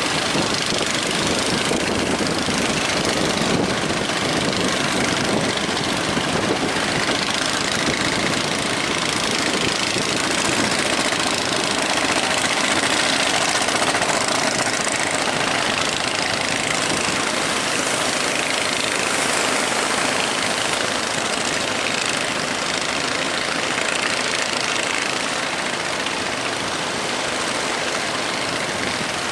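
Ship's engine running steadily under a constant loud rushing noise, with no breaks.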